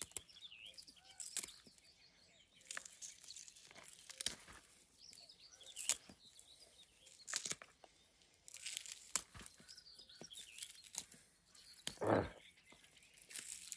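Long green potato stalks being snapped and torn off a bucket-grown potato plant by hand: a series of sharp snaps and leafy rustling, the loudest snap near the end. Small birds chirp in the background.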